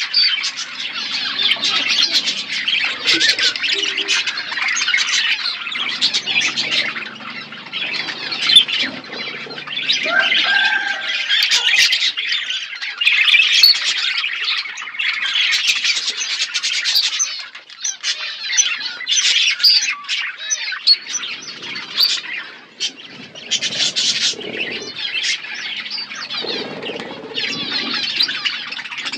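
A flock of budgerigars chattering and warbling continuously, many birds calling over one another.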